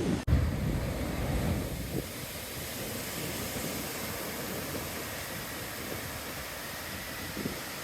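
Ocean surf washing in a steady hiss, with wind buffeting the microphone in low gusts for the first two seconds; the sound drops out for an instant just after the start.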